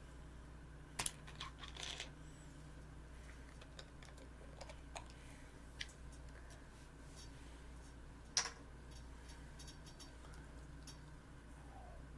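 Faint scattered clicks and taps, a small cluster about a second in and one sharper click a little past eight seconds, over a low steady hum.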